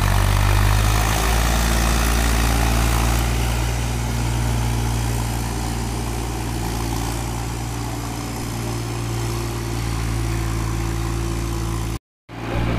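Tractor diesel engine running steadily as it pulls a tillage implement through a flooded field, growing a little quieter as it moves off. The sound drops out for a moment near the end.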